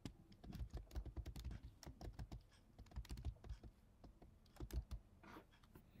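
Faint typing on a computer keyboard: quick runs of key clicks, with a short pause about two-thirds of the way through before a few more keystrokes.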